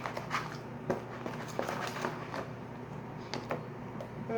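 Glue slime being mixed with a laundry-detergent activator: soft sticky squishing with a few sharp clicks, as the half-activated slime is still sticky.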